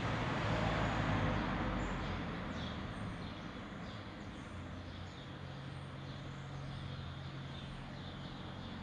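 Outdoor background of a steady low hum and hiss, with small birds giving short, falling chirps every second or so from about two seconds in.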